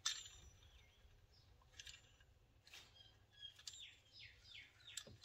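Near silence: a few faint light clicks of a hand tool at the brake caliper, and faint bird chirps, a quick run of short falling notes, in the second half.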